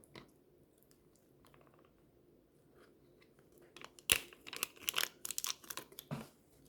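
Crunchy snack food being bitten and chewed close to the microphone: after a quiet start, a sharp crunch about four seconds in, then two seconds of rapid crackling crunches.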